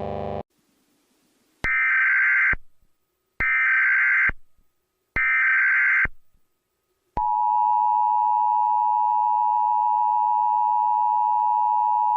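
Emergency Alert System tones. Music cuts off just after the start, then three short buzzing SAME header data bursts follow, a little under two seconds apart. About seven seconds in, the steady two-tone EAS attention signal (853 and 960 Hz) begins and holds.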